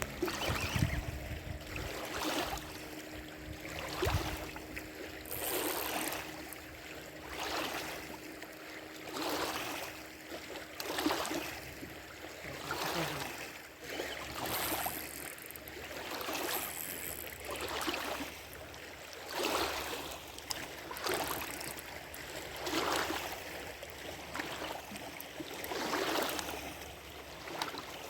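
Water sloshing and lapping in a steady rhythm, a swell about every second and a half.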